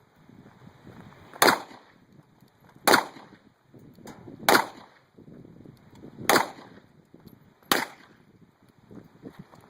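Handgun fired five single shots at an unhurried pace, about one and a half seconds apart.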